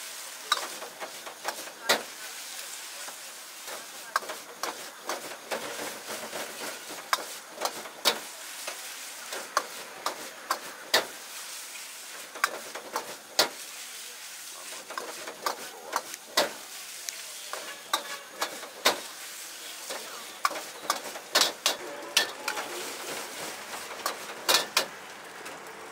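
Metal ladle clanking and scraping against a wok as egg fried rice is stir-fried, over a steady sizzle from the hot wok. The clanks come irregularly, about once a second.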